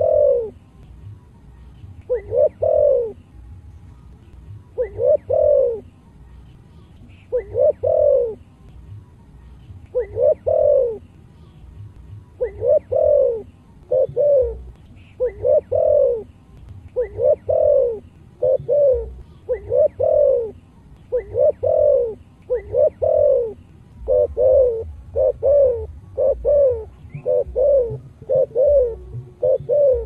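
Spotted dove cooing: short phrases of a few notes each, repeated about every two and a half seconds at first. Around the middle they come about once a second, and near the end faster still.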